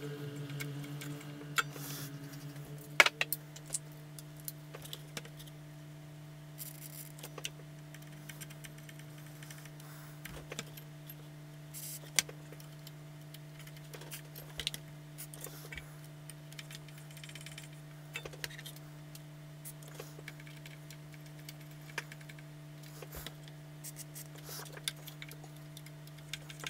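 Small clicks and taps of hands and tools working on a vintage amplifier chassis, the loudest about three seconds in, with a few short hisses of contact-cleaner spray being applied to the potentiometers. A steady low hum runs underneath.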